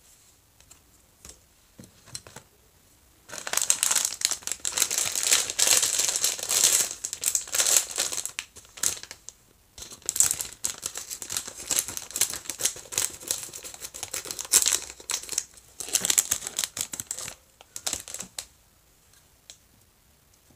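Plastic packaging of a Re-Ment miniature set crinkling and being torn open by hand. It starts about three seconds in and comes in long dense stretches with short breaks around ten and sixteen seconds, then a few light clicks near the end.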